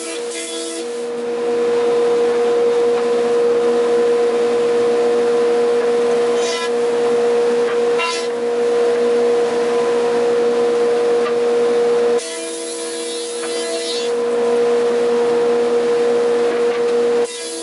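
A woodworking shop machine running steadily with a constant high hum over a hiss. There are two brief louder noises about six and a half and eight seconds in, and the sound changes abruptly about twelve seconds in and again near the end.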